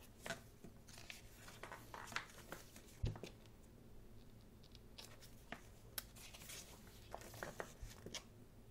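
Pages of a thick photobook being turned and handled: paper rustling and swishing in short bursts, with a soft thump about three seconds in.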